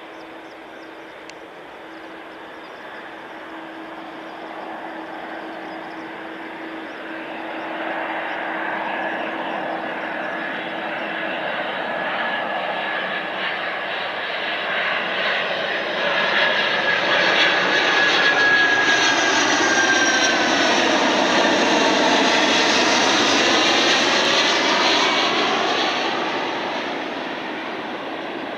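ANA Cargo Boeing 767 freighter on final approach passing low overhead: its jet engine noise builds steadily, stays loud for several seconds with a thin whine that dips slightly in pitch, then fades near the end.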